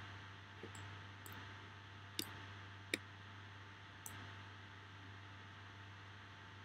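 About six scattered clicks from computer input, with the two loudest near two and three seconds in. Underneath is a steady low electrical hum and faint hiss.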